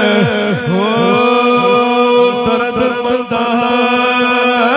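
A man's chanting voice, amplified through a microphone and loudspeakers. The pitch slides and wavers at first, then holds one long steady note from about a second in.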